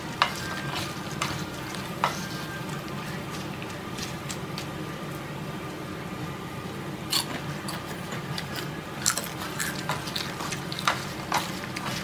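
Wooden spatula and chopsticks tossing crisp-fried pollack skins in a sticky soy-based seasoning in a wooden bowl. A steady wet rustle and squish of the coated skins, with now and then a sharp click of wood against wood.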